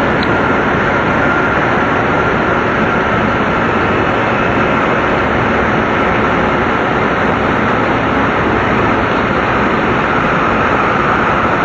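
Tōhoku Shinkansen Hayate train running steadily, heard from inside the passenger car: an even, loud rumble and rushing noise with a faint steady whine above it.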